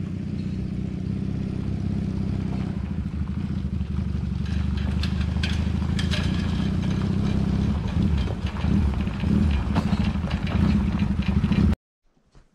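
A small motor vehicle's engine running steadily while towing a boat trailer over gravel, growing a little louder as it approaches. Rattling and crunching are heard in the second half, and the sound cuts off abruptly near the end.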